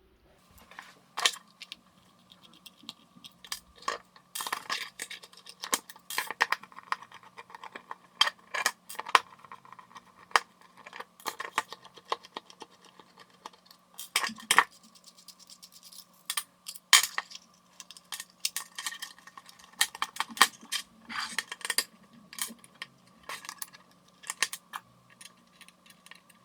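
Irregular clicks and clinks of small hard plastic and metal parts being handled as an electrical power plug is taken apart by hand, over a faint steady hum.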